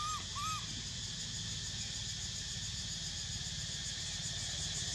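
Two short rising-then-falling cries near the start, like a baby macaque's coos, over a steady high-pitched drone and a low hum.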